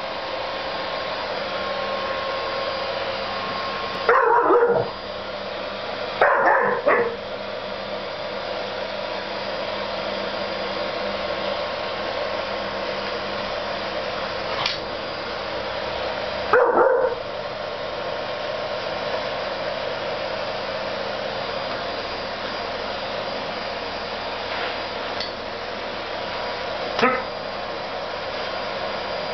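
A vacuum cleaner running steadily while a young husky barks at it: loud barks about four and six seconds in, another around seventeen seconds, and a short one near the end.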